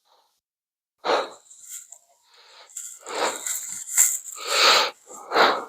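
Short, breathy bursts of a man's strained exhaling, four or five of them, as he pushes a dent out of sheet metal.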